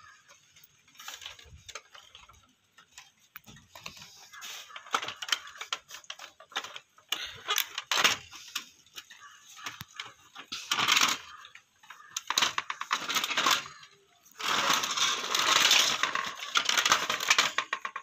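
Plastic case and parts of an old cassette radio being handled and pulled apart by hand: scattered clicks, knocks and scraping, with a longer, louder stretch of rattling and scraping in the last few seconds.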